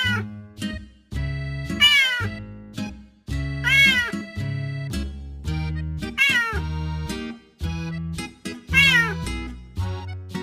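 A cat meowing five times, each meow short and falling in pitch, spaced about two seconds apart, over upbeat music with a steady repeating bass line.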